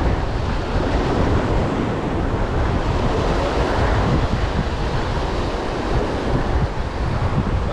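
Steady wash of sea surf with wind buffeting the microphone.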